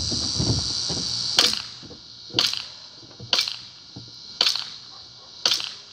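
KWA ATP gas blowback airsoft pistol fired in semi-auto: five single shots about a second apart, each a sharp crack of gas and the slide cycling.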